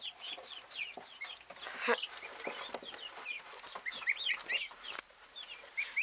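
Young turkey poults peeping: many short, high chirps, several a second, with a few soft clicks from the birds moving in the litter.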